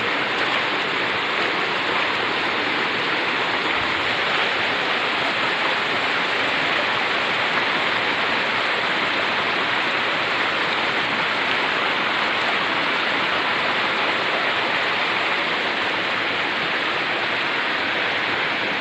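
Flowing water rushing steadily, an even hiss that does not change.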